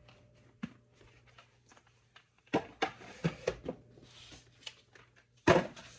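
Household items being handled and set down in a cabinet: a run of knocks and clatters about two and a half seconds in, and a louder knock near the end, over a faint steady hum.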